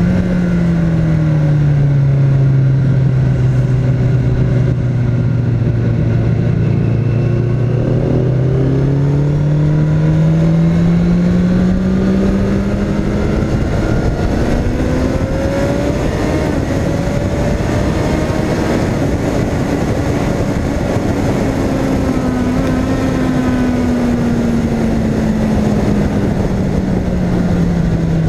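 Motorcycle engine heard from onboard at track speed under heavy wind rush. Its note drops at the start, holds low for several seconds, climbs steadily for about ten seconds, then falls slowly again near the end.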